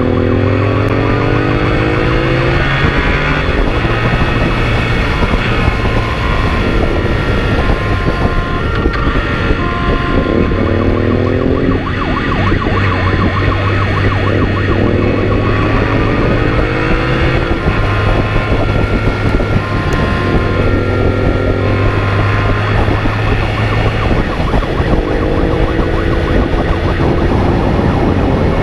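Police motorcycle engine accelerating hard, its pitch rising in several sweeps as it runs up through the gears, over a continuous two-tone siren.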